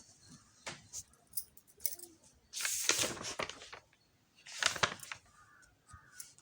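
Paper and pen handling: a few sharp clicks, then two scratchy rustling bursts, the longer one near the middle.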